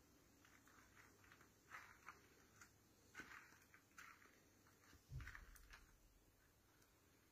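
Near silence with a few faint clicks and short rustles, and one soft thump about five seconds in.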